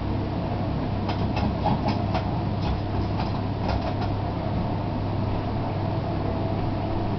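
A blacksmith's forge hearth running with a steady mechanical hum and rush of air. Between about one and four seconds in there is a quick run of light metallic clinks from tongs and iron being handled at the hearth.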